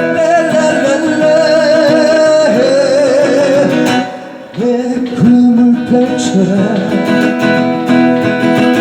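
Acoustic guitar music with a held, wavering melody line over the chords; the sound dips briefly about four seconds in.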